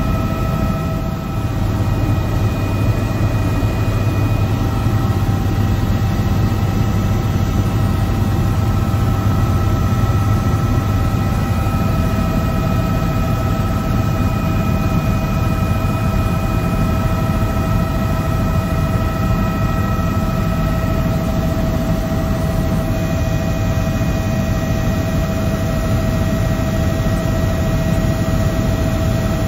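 Helicopter in flight heard from inside the cabin: a steady low rotor and engine drone with a few constant whining tones over it.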